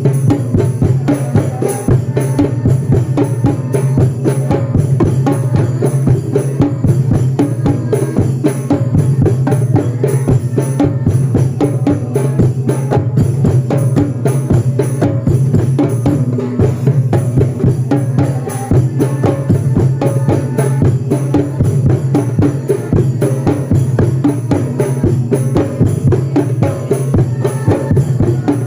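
Percussion music: drums being played in a fast, steady rhythm of dense strikes throughout.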